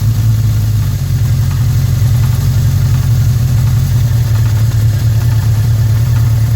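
1981 Suzuki GS650G motorcycle's air-cooled inline-four engine idling steadily, with an engine knock.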